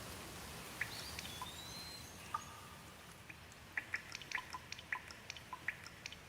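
Rain: a soft steady hiss with individual drops dripping and plinking onto a surface, the drips coming thick and fast from a little past halfway.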